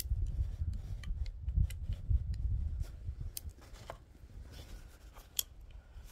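Small, irregular metallic clicks and scrapes of 11 mm pinfire cartridges being pushed one at a time through the loading gate into the cylinder of a Belgian pinfire revolver. A low rumble sits under the clicks for the first three seconds or so.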